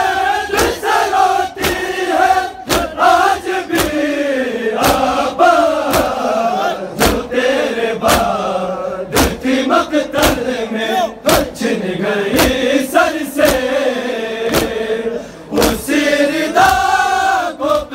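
A large crowd of men chanting a mourning lament together, beating their chests in unison with sharp slaps about once or twice a second.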